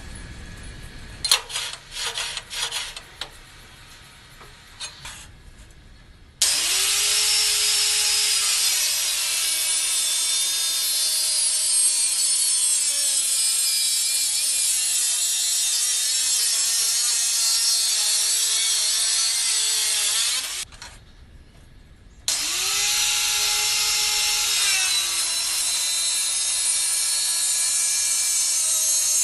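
Handheld power cutter (angle grinder type) cutting through metal twice. Each time the motor whines quickly up to speed and then runs with a loud, hissing cut, its pitch sagging under load. The first cut lasts about fourteen seconds, the second starts about two seconds after it stops. Before the first cut there are a few clicks and knocks of handling.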